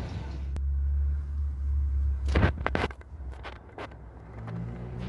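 Inside a Dodge Grand Caravan minivan's cabin while it drives in city traffic: a low engine and road rumble, with a handful of sharp clicks and knocks about halfway through.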